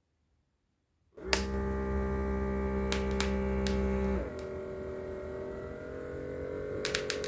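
Small electric pump of an automatic blood pressure monitor humming as it inflates the cuff. It starts with a click about a second in, then drops in level about three seconds later, and its pitch creeps slowly upward while a few light clicks sound.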